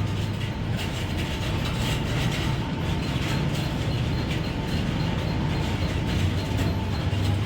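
Steady mechanical running noise with a strong low hum and a faint steady high tone, with no break.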